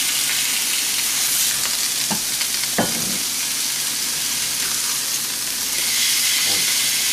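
Ribeye steaks and pork loin sizzling steadily on hot cast iron grill pans while a steak is turned with tongs, with two light clicks about two and three seconds in. The sizzle grows louder near the end as the turned steak meets the hot pan.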